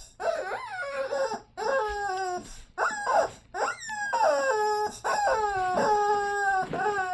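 Squeaky dog toy squeezed over and over, giving about eight squeaks that each slide down in pitch. The longest squeak comes about five seconds in.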